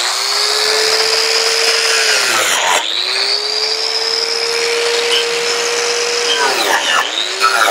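Bosch 5-inch angle grinder fitted with a chainsaw disc, spinning with a steady high whine. About two and a half seconds in it winds down and is switched straight back on. It runs about four seconds more, winds down again, and is blipped briefly near the end.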